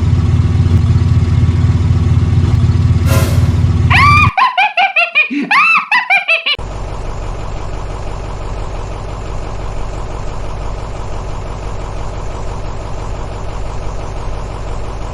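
A loud, steady, low engine-like drone, broken off about four seconds in by a couple of seconds of warbling, bending whistle-like tones, then a quieter steady engine-like hum.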